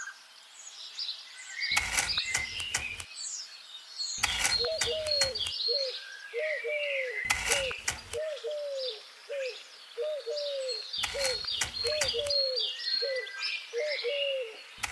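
Birds chirping with a repeated low cooing call, about two a second from roughly four seconds in. Over it, every three seconds or so, comes a short burst of gritty clicks as a metal rod is pushed into damp sand to make a hole.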